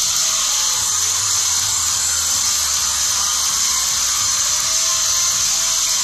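A loud, steady hiss, strongest in the high range, with a faint low hum from about a second in until about five seconds in.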